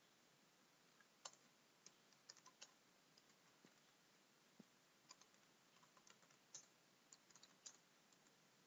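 Faint computer keyboard typing: irregular short runs of key clicks as a command is typed at a command prompt.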